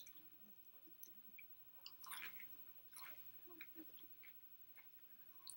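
Faint chewing and biting of food close to the microphone: scattered small mouth clicks and light crunches, a little louder about two seconds in.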